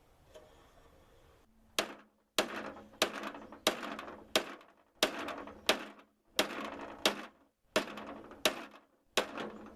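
A heavy homemade hammer, a 4-pound weight welded to a pipe, beating the sheet-metal deck of a 1986 Sears Craftsman II riding mower. About a dozen evenly spaced blows come roughly one and a half a second, starting about two seconds in, each ringing briefly. The hammering knocks out a dent left by a stump so the blade has clearance to turn.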